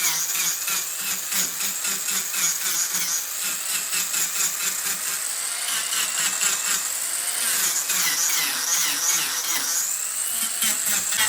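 Mini angle grinder cutting and shaping wood. Its high motor whine dips and recovers as the disc bites in, with a dense rapid rattle of the disc against the wood.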